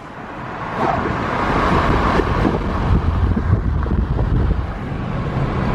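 Car driving, with steady road rumble and wind noise that grow louder about a second in.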